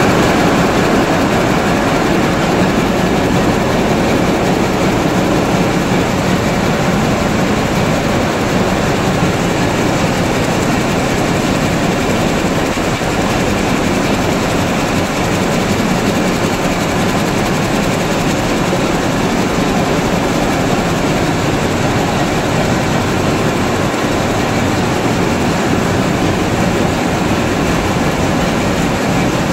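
Weaving looms running at full speed, about 325 picks a minute: a loud, dense, steady mechanical noise with no let-up.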